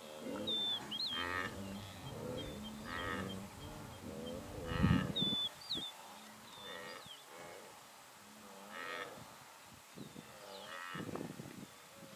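Repeated short calls of a large grazing animal, roughly one every two seconds, with small birds chirping thinly between them.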